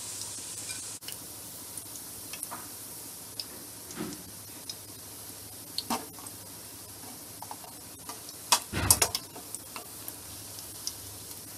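Batter-coated baby corn frying in hot oil in a steel pan, a steady sizzle, while a wire-mesh skimmer scoops the pieces out. Scattered clicks run through it, and a short cluster of louder knocks comes about nine seconds in.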